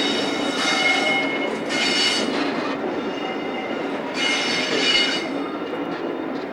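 A train running past with its wheels squealing in bursts of high, ringing screech over a steady running rumble, louder around two seconds in and again about four seconds in.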